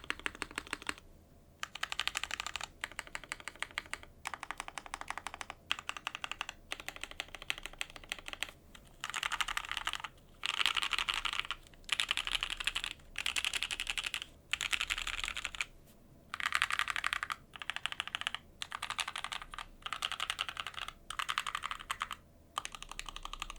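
JJW Cloudline custom mechanical keyboard typed on quickly, in bursts of rapid keystrokes with short pauses between. It has lubed OP Black switches with long 65 g springs, a polypropylene plate in an O-ring mount, and GMK keycaps.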